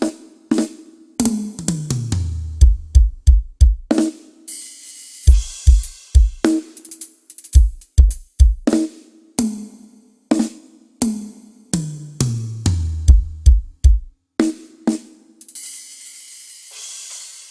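Drum kit being played in a sound check: single drum hits, two tom fills stepping down from high toms to floor tom, and clusters of low kick-drum hits. Cymbal crashes ring out around four seconds in and again near the end.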